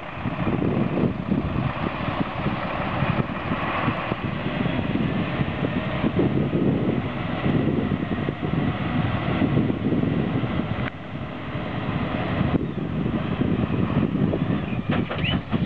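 Scania tractor unit's diesel engine running loud and steady as the tipper truck moves on soft, muddy ground, with a brief high squeal near the end.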